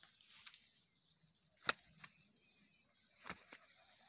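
A freshly landed snakehead flopping and slapping on grass: four sharp slaps, the loudest a little under two seconds in, with light rustling of grass.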